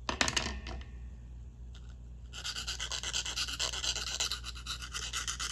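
Square needle file rasping in a small square hole in a thin styrene sheet, fast back-and-forth strokes squaring off the hole's edges; the filing starts about two seconds in. A brief burst of noise right at the start is the loudest moment.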